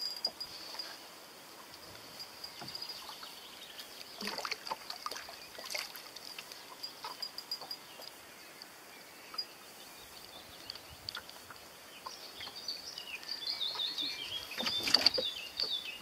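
A pike splashing at the surface beside a rowboat while it is played, with scattered knocks in the boat and a louder burst of splashing near the end as the fish is gripped. A faint steady high whine runs underneath.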